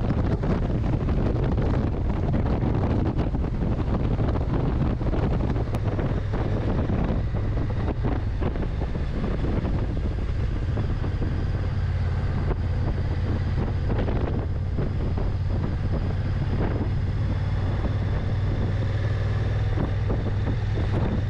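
Honda NT1100's parallel-twin engine running steadily under way, with wind rushing over the microphone.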